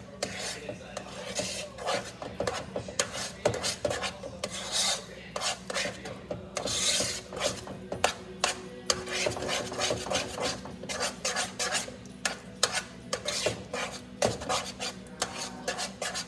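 Mashed potatoes being worked in a pot: a kitchen utensil scrapes, rubs and knocks against the pot again and again, with irregular strokes.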